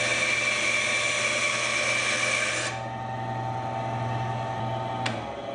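Rikon 10-3061 benchtop bandsaw with a half-horsepower motor and a coarse blade cutting through 3/4-inch Baltic birch plywood: a loud, bright cutting noise over the steady motor hum. The cut ends under three seconds in, and the saw runs on free with only its hum. A single sharp click comes near the end.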